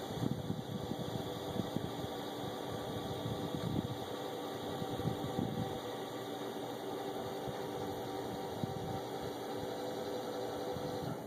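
Electric wheelchair crane motor running with a steady hum as it lowers a folded manual wheelchair beside a pickup's door, stopping near the end. Wind gusts rumble on the microphone under it.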